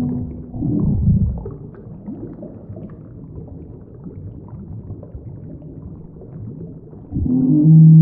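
Custom-made monster sound effects for the kaiju M: a held low tone breaks off into a rumbling growl about a second in, a low rumble continues, and near the end a loud, deep, pitched roar begins.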